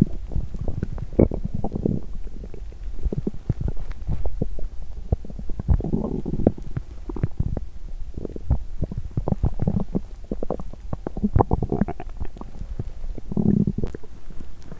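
A woman's stomach growling and gurgling on an empty stomach after exercise: a dense, irregular run of small pops and bubbly gurgles, with longer low rumbles about six seconds in and again near the end.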